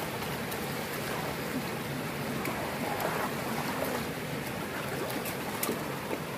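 Steady rush of shallow water running over the edge of a paved road, with small splashes and clicks as a plastic basket is dipped into it and lifted out.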